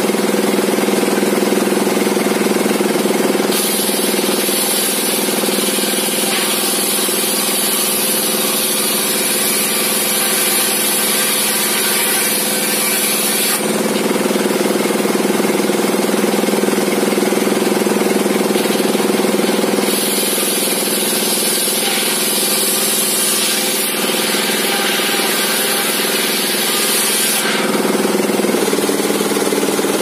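Homemade belt-driven table circular saw running steadily and ripping planks from squared timber. Its sound changes every several seconds as a cut begins or ends.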